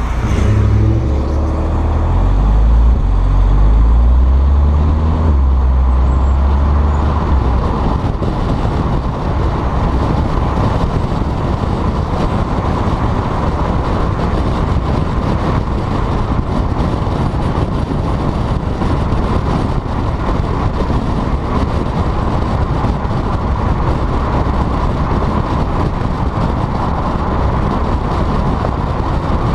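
Volkswagen GTI with a turbo-back exhaust driving off, its engine note shifting up in steps over the first several seconds. After that it drives on with a steady rumble of road and wind noise.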